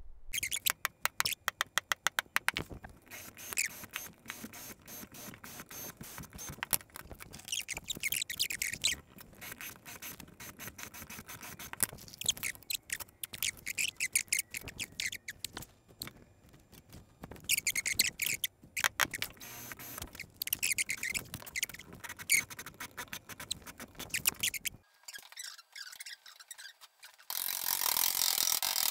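Hand tools working on metal parts: scattered clicks, squeaks and scrapes as the gate controller is taken apart and a sheet-metal mounting plate is made, ending with about two seconds of steady rasping on sheet metal.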